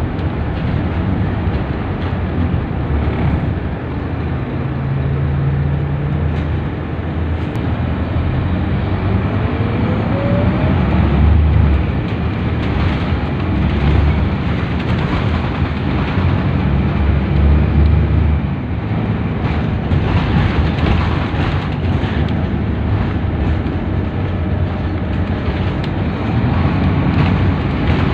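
Scania K230UB city bus heard from inside the passenger cabin while under way: its rear-mounted five-cylinder diesel engine runs continuously with road and tyre noise. The engine note rises and falls as the bus accelerates and changes gear, and a thin rising whine comes briefly about nine seconds in.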